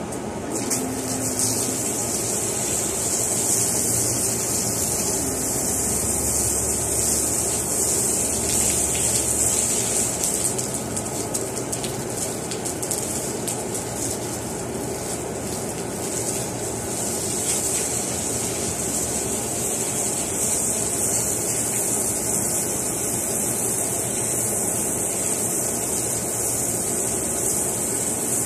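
Water spraying from a garden hose onto a tiled floor and wall: a steady hiss that sets in about half a second in, with a low steady hum underneath.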